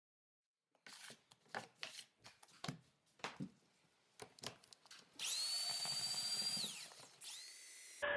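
Drill-driven paddle mixer in a bucket of drywall joint compound. A run of knocks and slaps comes first as the paddle churns the thick mud, then about five seconds in the drill winds up to a steady high whine. It winds down, runs again briefly, and spins down near the end.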